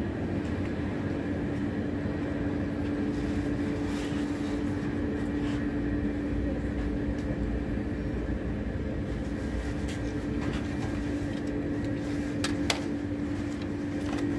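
Steady mechanical hum with one constant low tone over a noisy bed, and a couple of sharp clicks about twelve and a half seconds in.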